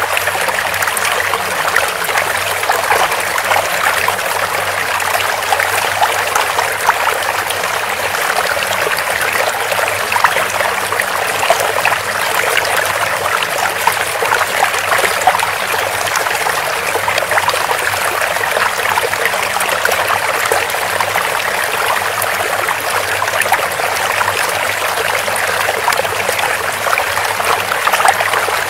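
Steady flowing water of a small stream, trickling with many fine splashes.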